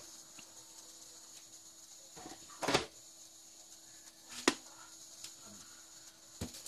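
Two short knocks from a project-box enclosure being handled, one about two and a half seconds in and one about four and a half seconds in.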